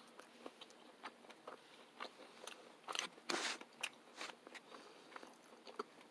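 Faint, close-up chewing of food, a scatter of small wet clicks and mouth noises, briefly louder about three seconds in.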